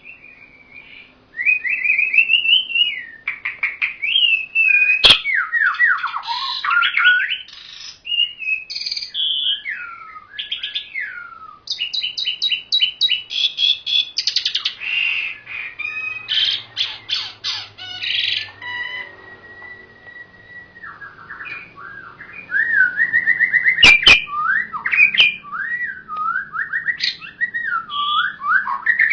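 Songbird singing a long, varied song of whistled glides, rapid trills and harsher chattering notes, with two sharp clicks, one about five seconds in and one near the end.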